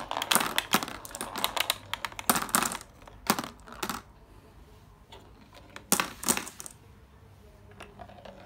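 Glass marbles clicking and clattering against each other and a plastic hexagon-tile marble track, dropping into a clear plastic collection box: a dense clatter for the first few seconds, then a few scattered clicks about six seconds in.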